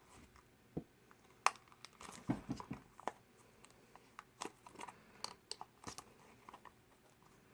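Small toy blind box being opened by hand: scattered crinkles, clicks and small tearing sounds of cardboard and plastic packaging, with one sharper snap about one and a half seconds in.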